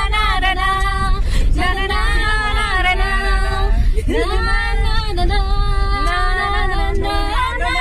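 A Hindi song with a woman singing a sustained melody, over a steady low rumble.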